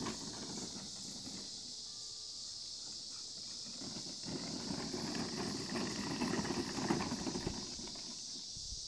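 Red Radio Flyer wagon rolling and rattling over grass as a dog pulls it, with uneven knocks and rustling that grow busier from about four seconds in and are loudest near seven seconds.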